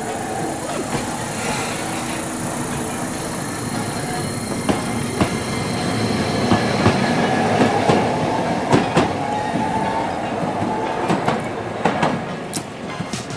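Train running past on the rails, its wheels clacking sharply over rail joints, with a whine that rises slowly in pitch through the middle.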